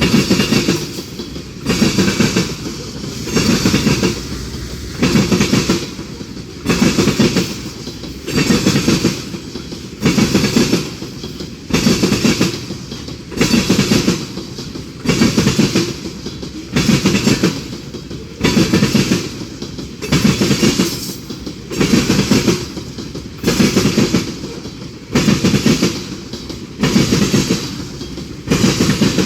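Freight train cars rolling past with their steel wheels clattering over rail joints, a steady rhythm of loud clacks about once a second.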